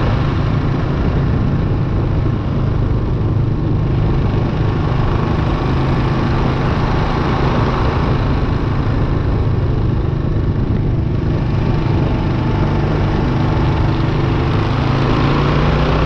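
Single-cylinder 650 cc dual-sport motorcycle engine running at a steady cruise while riding, with wind and road rush over the microphone.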